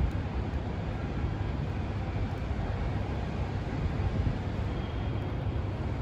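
Steady low rumble of city road traffic, an even noise with no distinct events.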